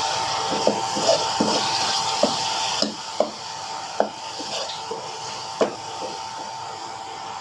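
A metal spatula knocks and scrapes against a wok at irregular intervals, stirring onions in a sauce, with light sizzling. Under it runs a steady rushing noise that drops noticeably about three seconds in.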